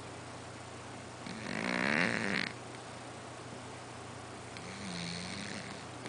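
A cat snoring: two snoring breaths, a louder one about a second in and a softer one near the end.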